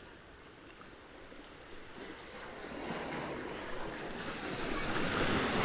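Sea surf: waves washing onto the beach, the rush of water growing louder through the second half.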